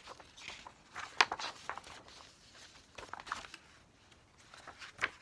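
Pages of a glossy photo book, its binding coming loose, being flipped and handled: paper rustling with a few sharp snaps of stiff pages, the loudest about a second in.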